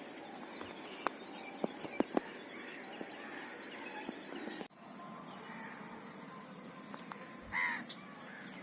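Faint outdoor insect chorus: a steady high-pitched buzz with a regular chirp pulsing a few times a second, crickets among them. A few sharp clicks sound early on the first seconds, and a short louder sound comes near the end.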